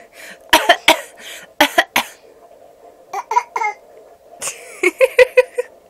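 A young child coughing hard in short bouts: two or three harsh coughs about half a second in and two more at about a second and a half, then a quick run of short voiced coughs and sounds near the end. The child is ill with what is called a horrible cough.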